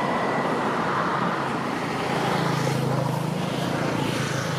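Steady road traffic noise, with a motor vehicle's engine hum coming up about two seconds in and holding to near the end.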